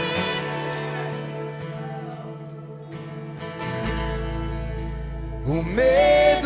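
Instrumental passage of a worship song: acoustic guitar over sustained chords, with a deep bass note entering about four seconds in and a voice gliding up into a sung note near the end.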